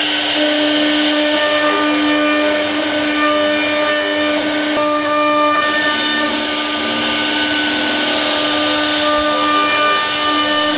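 CNC router spindle running with a steady whine while its bit cuts a relief pattern into a wooden panel. The cutting tone shifts about halfway through as the head changes its path.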